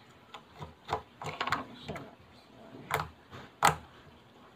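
Homemade white-glue slime being squeezed and pulled against a wooden tabletop, giving a handful of short sticky clicks and pops, the loudest near the end.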